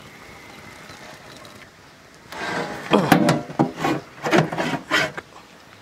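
Metal spatula scraping and rubbing against a large metal cooking pot in a run of loud, irregular strokes, starting about two seconds in and lasting about three seconds, as a heavy mass of steamed meat is levered out.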